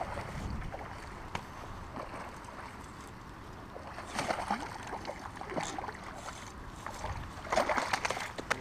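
A hooked largemouth bass thrashing and splashing at the water's surface as it is fought to the bank. There are bursts of splashing about four seconds in and again briefly a little later. The loudest flurry comes near the end, as the fish is pulled to the edge.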